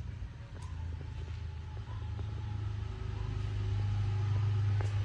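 Low, steady rumble of a nearby motor vehicle engine, growing louder about three seconds in.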